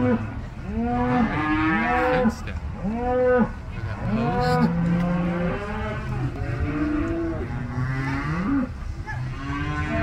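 A herd of cattle mooing, many calls overlapping without a break, each rising and falling in pitch.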